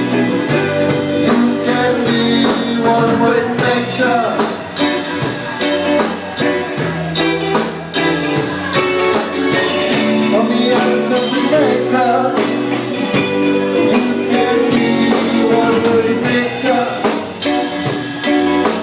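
Band playing a blues-rock song live: guitar and drum kit keeping a steady beat, with a sung vocal.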